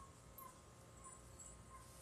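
Near silence: faint outdoor ambience with four brief, faint high chirps spread through it.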